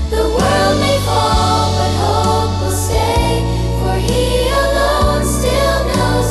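Christian worship music with a choir-like vocal sound over held chords, the bass note changing about once a second.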